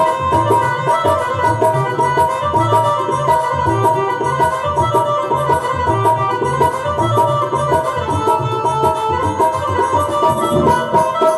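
Instrumental interlude of a Hindi Krishna bhajan: held melody notes over a steady, rhythmic hand-drum beat, with no singing.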